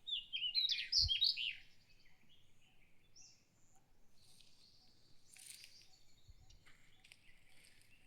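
A wild bird calling: a quick run of high, down-curving chirps for about a second and a half, then only faint scattered chirps.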